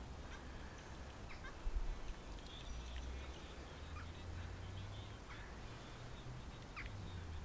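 Wind rumbling low on the microphone, with a few faint, short bird calls scattered through it.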